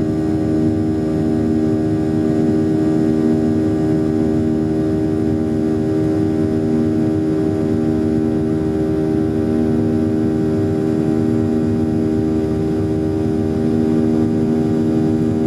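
Jet airliner's engines running during the climb after takeoff, heard inside the cabin as a steady hum with several held tones over a rush of noise.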